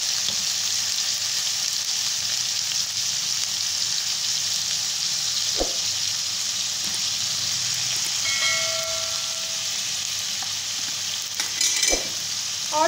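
Chopped chicken and vegetables frying in hot oil in a pan, sizzling steadily as soy sauce is added. Two light knocks come about midway and again near the end.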